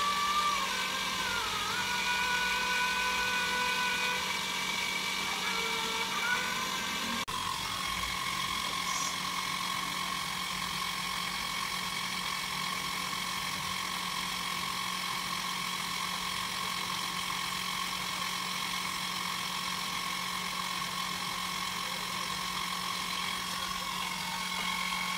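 Electric motor driving a potter's wheel, running with a steady hum and whine. The pitch wavers over the first few seconds, then holds steady after a brief break about seven seconds in.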